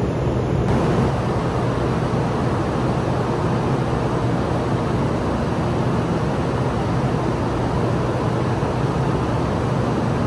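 Steady low rumble and hiss of an underground high-speed rail station platform, even throughout with no distinct events.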